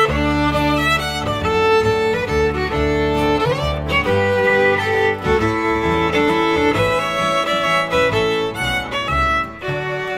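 Old-time Native and Métis fiddle music: a fiddle playing a tune, its notes changing several times a second over a lower accompaniment.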